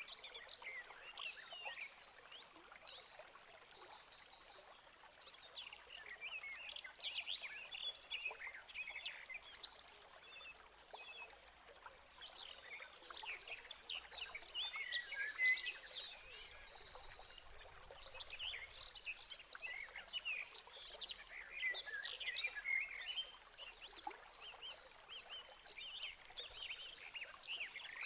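Bursts of rapid, high-pitched peeping from newly hatched great tit chicks begging in the nest box, each burst a few seconds long and recurring every few seconds.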